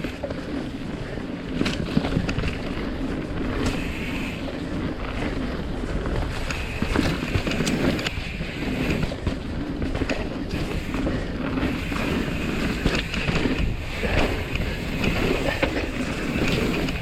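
A mountain bike ridden down a dirt trail: tyres rolling over hardpack, wind on the microphone, and frequent clatters and knocks as the bike goes over bumps.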